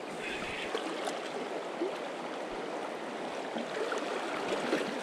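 Shallow, clear river flowing steadily over a rocky bed, a continuous rushing ripple.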